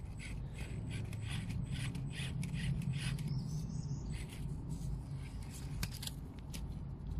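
Traxxas TRX-4M 1/18-scale RC crawler climbing: its electric motor and gears make a steady low hum that swells about two to three seconds in, while the tyres and chassis scrape and click over roots many times.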